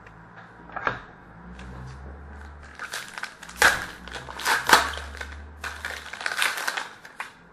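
A hockey card pack's shiny wrapper being torn open and crinkled by hand, with a run of crackling from about three seconds in until just before the end. A light tap comes about a second in.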